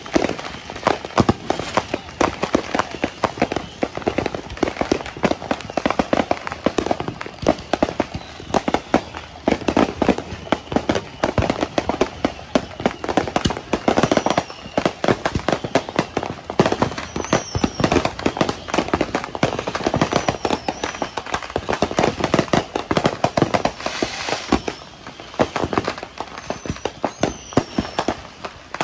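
Consumer fireworks going off without let-up: rapid strings of firecracker pops and crackles mixed with louder bangs. There are a few short whistles, each falling in pitch, in the second half.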